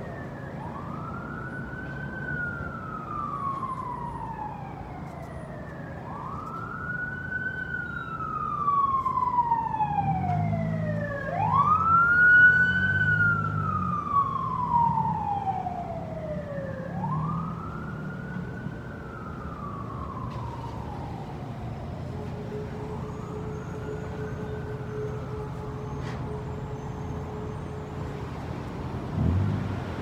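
Emergency vehicle siren wailing in slow rise-and-fall cycles about five seconds apart, growing louder to a peak about halfway through and then fading as it moves away. Wind noise underneath.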